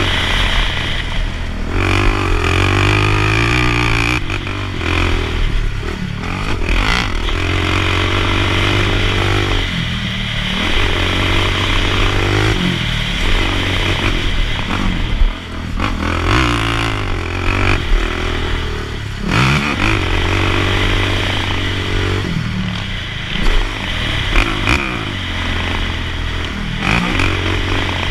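Sport quad (ATV) engine revving hard while it is ridden fast over a dirt motocross track, its pitch climbing through each burst of throttle and dropping off again over and over, with rattle from the machine over the rough ground.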